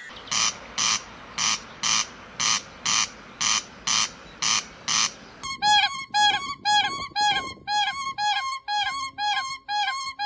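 Two different bird calls one after the other: first a harsh, rasping call repeated about twice a second, then from about five and a half seconds in a quick run of clear, piping notes, about three a second.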